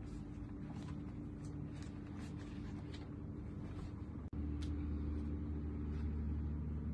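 Steady low hum of room tone with a few faint clicks. About four seconds in, the sound cuts briefly and comes back as a slightly louder, deeper steady hum.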